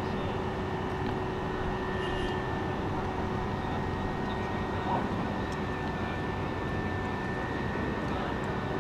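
Steady mechanical drone of a ship's heavy-lift crane and its machinery holding the suspended tank, with a faint steady whine running through it. A brief clink about halfway through.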